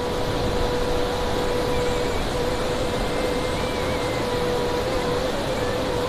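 Waterfall and stream rushing over rocks, a loud steady rush of water, with a long held note of background music underneath.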